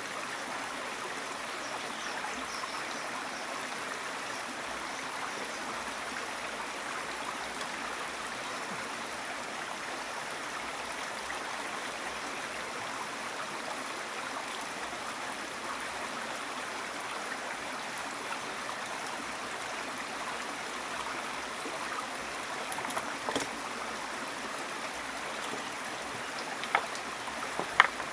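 River water flowing steadily over the riverbank, a continuous rushing sound. A few short knocks come near the end, the last two sharp and louder than the water.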